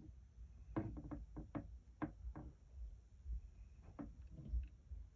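Faint clicks and light taps from small parts and tools being handled at a workbench, several in quick succession in the first half and a couple more near the end.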